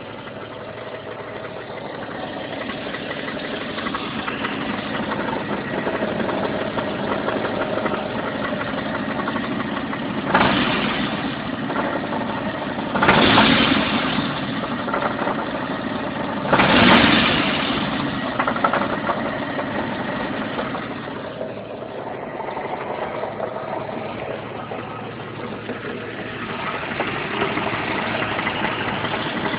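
Jeep Cherokee XJ's 4.0-litre straight-six running at idle with a rattling knock, with three short louder surges about 10, 13 and 17 seconds in. The rattle, which sounds like a bad rod bearing, comes from loose flexplate-to-torque-converter bolts.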